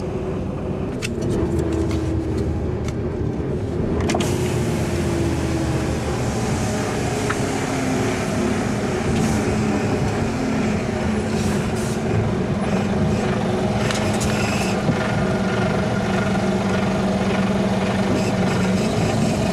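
Mercedes Actros truck's diesel engine heard from inside the cab as the truck pulls away and drives slowly, its note rising and falling over the first few seconds and then running steady. A sharp click sounds about a second in and again about four seconds in.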